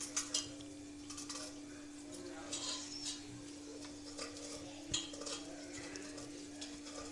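Faint scrapes and light taps of a wooden spatula in an appe pan as the appe are turned over, with one sharper knock about five seconds in. A steady low hum runs underneath.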